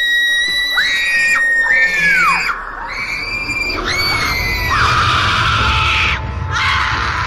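High-pitched screams used as a horror sound effect. One long scream falls slightly in pitch, then several shorter overlapping screams follow. Over the second half the screams turn rough and noisy over a low rumble.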